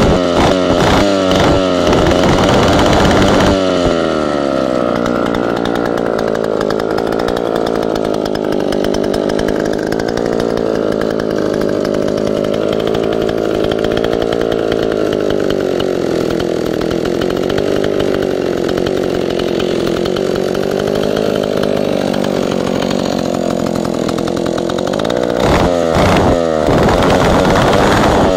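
Solo 635 Mark III two-stroke chainsaw running, revved up for the first few seconds, then idling steadily with a slowly wavering speed, and revved again near the end. The engine has a new piston and rings and is still a bit tight.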